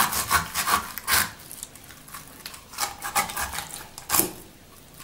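Serrated knife sawing through the bones along a raw chicken's backbone, in rasping back-and-forth strokes: a run of quick strokes at first, a few more about three seconds in, and one loud stroke about four seconds in.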